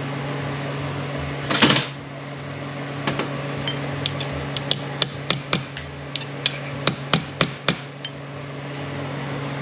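Light metal-on-metal hammer taps, about a dozen over some five seconds, after a short scrape about a second and a half in. These are parts being tapped into place on a T5 manual transmission's gear shaft.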